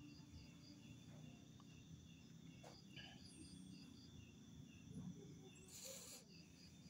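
Faint insect chirping, an even high pulse about three times a second, over a low steady rumble of outdoor background noise. A brief burst of noise comes about six seconds in.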